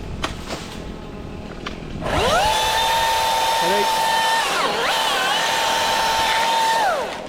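Milwaukee battery top-handle chainsaw spinning up about two seconds in and running at a steady high whine. Its pitch dips briefly midway, then it winds down near the end.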